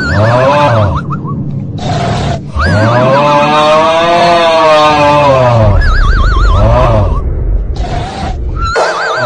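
A horse whinnying several times: high, quavering neighs over a lower voice that rises and falls. The longest call, in the middle, lasts about three seconds.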